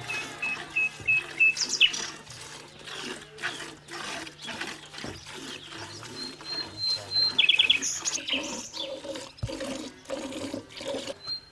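Milk squirting into an enamel pail as a cow is milked by hand, in a steady rhythm of about two squirts a second. Birds chirp over it.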